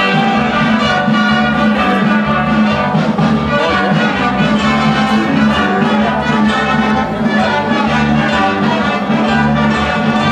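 Band music with violins and brass over a steady low beat.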